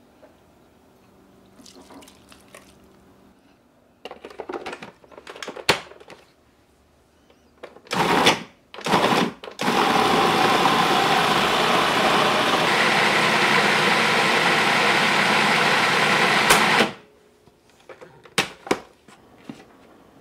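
Cuisinart food processor pureeing chunks of apple, onion, ginger and garlic: two short pulses, then a steady run of about seven seconds that stops abruptly. Plastic clatter and clicks of the bowl and lid being handled come before and after it.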